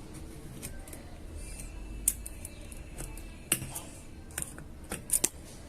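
Several sharp metallic clicks with light scraping: scissor tips working a steel retaining ring into its groove above a newly fitted bearing, the loudest click about two seconds in and a quick pair near the end.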